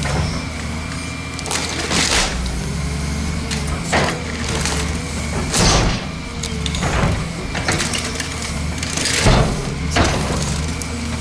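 Volvo EC210CL excavator's diesel engine running steadily under hydraulic load, with about six loud crunching impacts as the bucket smashes and crushes a dishwasher's sheet metal.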